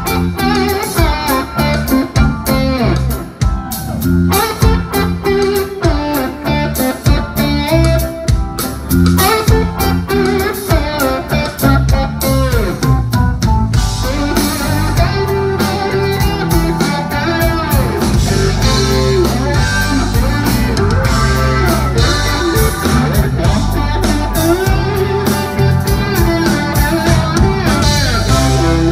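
Live rock band, with an Ibanez Ice-Stroyer electric guitar playing a lead solo of bent and sliding notes over a steady drum beat.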